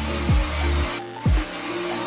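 Background electronic music with heavy bass: deep booming hits that drop sharply in pitch, over sustained low bass notes.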